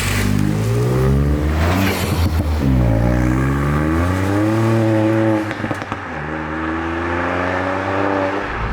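Ford Fiesta ST MK8's turbocharged 1.5-litre three-cylinder engine, breathing through an open-cone REVO induction kit, accelerating through the gears. The engine note rises steadily, falls at two gear changes a couple of seconds and about five and a half seconds in, with a short burst of rattly noise at each change, then climbs again.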